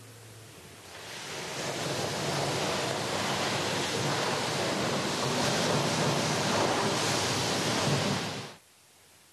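A steady rushing noise, like static or surf, that swells in over the first second or two, holds, and then cuts off suddenly near the end.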